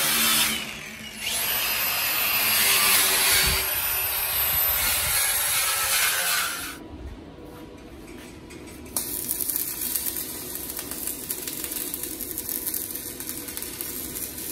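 A power tool runs with a high whine for about five seconds near the start. After a short lull, an electric welding arc starts about nine seconds in and crackles steadily as a steel frame is welded.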